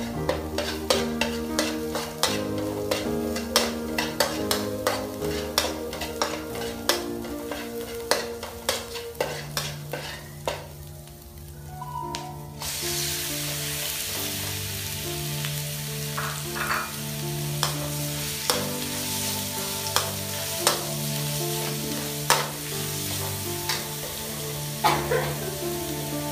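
A knife chopping frog meat on a cutting board, sharp knocks about twice a second; about halfway through, the meat hits hot oil in a wok and sizzles steadily, with a metal ladle now and then clinking against the wok as it is stirred. Background music plays underneath.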